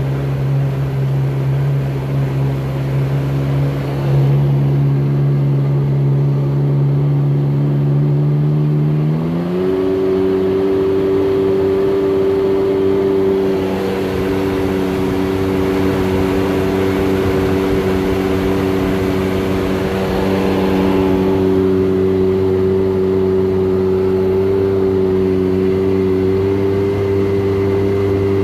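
Sea-Doo Shuttlecraft jet boat's two-stroke engine running steadily under way, its pitch rising quickly about nine seconds in as the throttle opens, then holding at the higher speed. The owner suspects the engine is burning too rich and smoking, with the oil mixer possibly not mixing right.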